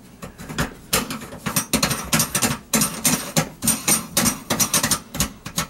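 Locking nut being spun by hand up the threads of a brass kitchen sink drain strainer to tighten it against the sink: a run of quick, irregular metallic clicks and scrapes, busier from about a second in.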